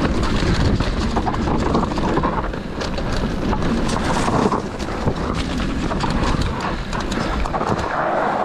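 Mountain bike rolling along a dirt and gravel trail: steady tyre noise with frequent small rattles and knocks from the bike, and wind buffeting the microphone.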